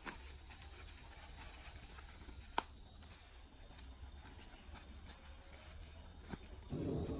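A steady, high-pitched insect drone, with one sharp click about two and a half seconds in.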